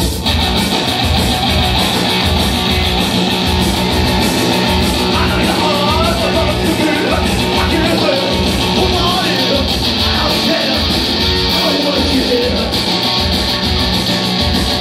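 Live rock band playing loud: distorted electric guitar over a steady beat, with a man singing into the microphone from about five seconds in.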